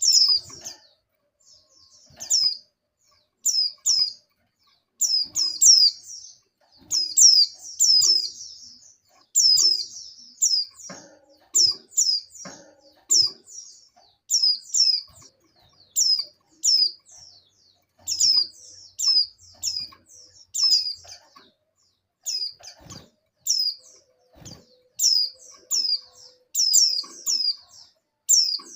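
Female white-eyes (pleci) giving short, high, downward-slurred chirps in quick clusters of two to four, repeated over and over: the call of a female in breeding condition calling for males.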